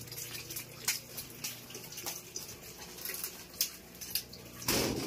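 Footsteps as a person walks, heard as scattered light clicks over a steady low hum, with a brief louder burst of noise near the end.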